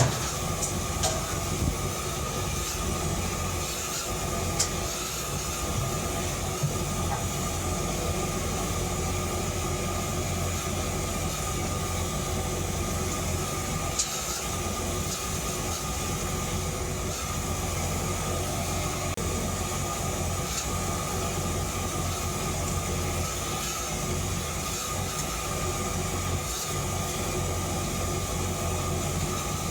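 Forge running: a steady rushing noise over a low hum, with a few faint ticks now and then.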